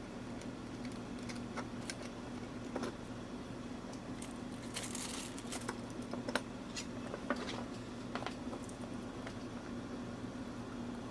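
Scattered light clicks and small rattles of small parts and tools being handled on a workbench, with a brief rustle about five seconds in, over a steady low electrical hum.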